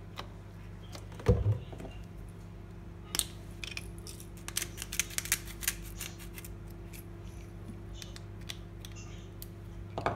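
Hand-twisted pepper grinder cracking peppercorns over a plate, a run of quick sharp clicks lasting a few seconds. A heavy thud comes just over a second in, and a knock near the end as the grinder is set down on the counter.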